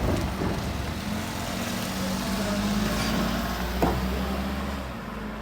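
A vehicle engine running steadily with a low hum and a held tone, and one sharp knock about four seconds in.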